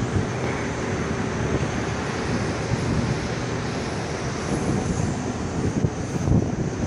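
Steady rushing outdoor noise with a fluttering low rumble: wind buffeting the microphone over distant traffic.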